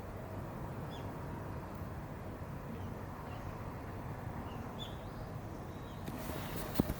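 Steady low background rumble with a few faint, short high chirps scattered through it, and two sharp clicks near the end.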